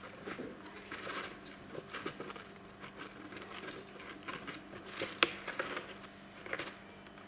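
A kitten biting and chewing the edge of a cardboard box, making irregular small crackles and clicks of cardboard. One sharp click about five seconds in is the loudest.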